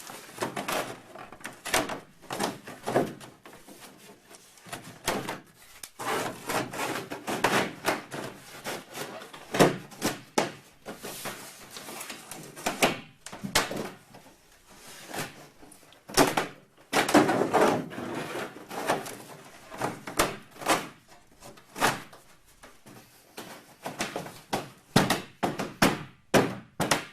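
Irregular knocks, thunks and short scrapes of fiberglass boat parts being handled and test-fitted together.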